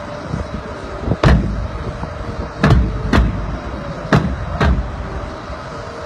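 Marching band percussion: about six sharp hits, bass drum with cymbal, spread over a few seconds above a faint sustained note. Wind rumbles on the microphone underneath.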